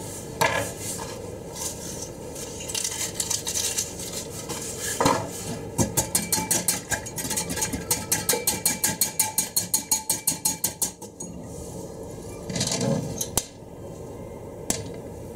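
Cookware and utensil clatter: a few knocks, then a run of quick, even taps, about five a second, lasting several seconds. Near the end comes a louder bump and scrape as the frying pan is lifted and shifted on the gas hob grate.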